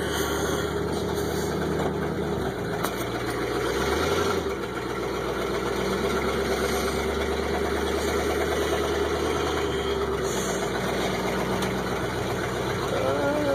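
A 1985 Chevy K20 pickup's engine idling steadily while still cold from a 17-degree cold start, heard from inside the cab. The idle note shifts slightly about two and a half seconds in.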